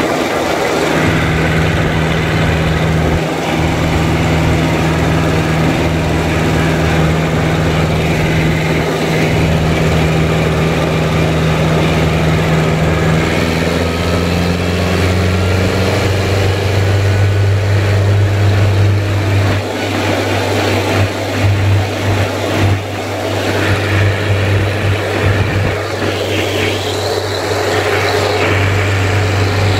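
IMT 558 tractor's diesel engine running steadily at full throttle as it drives along the road towing a trailer. About halfway through, the engine note shifts lower and heavier, and in the second half it turns uneven with scattered knocks.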